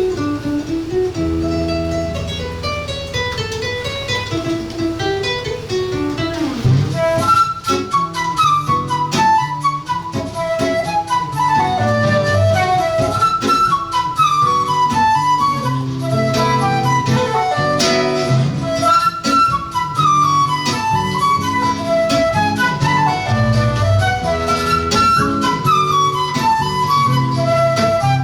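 Flute and seven-string guitar duo playing a lively tune that blends Irish and Peruvian music. About seven seconds in, the playing grows busier, with quick rising and falling flute runs over strummed guitar chords.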